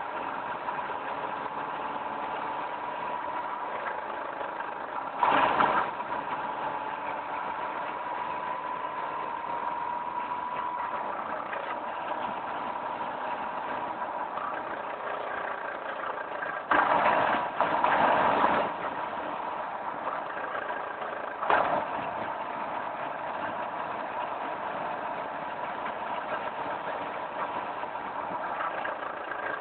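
Volkswagen Mk4 Golf running steadily, with a thin high whine over the engine note. Loud thumps come about five seconds in, as a cluster around seventeen to eighteen seconds, and once more near twenty-one seconds.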